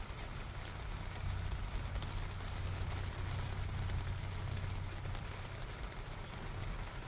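Steady rain falling, with scattered drop ticks over a constant low rumble.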